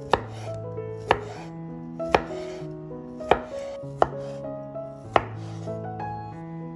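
A chef's knife slicing a peeled kiwi and striking a wooden cutting board: six sharp knocks, roughly one a second. Background music plays throughout.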